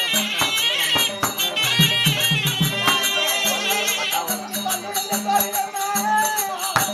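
Therukoothu folk-theatre music: a reed wind instrument plays a wavering melody over drum strokes, hand cymbals and a steady drone. About four seconds in the reed stops and a performer's singing voice carries the melody.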